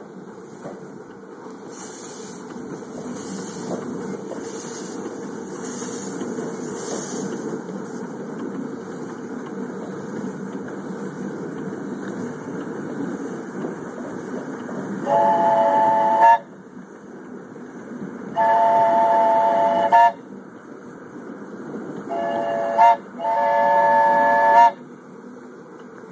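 Miniature ride-on steam locomotive and its cars running along the track with a steady rumble. About halfway through, its whistle sounds a chord in four blasts: long, long, short, long, the standard grade-crossing signal.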